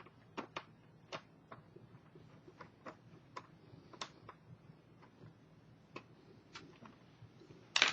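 Small irregular clicks and taps of a screwdriver and small screws being worked into a laptop's screen frame, with a louder clatter near the end.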